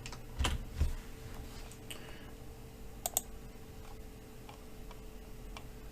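Scattered clicks of a computer mouse and keyboard, a few separate clicks with a quick double click about three seconds in, over a faint steady hum.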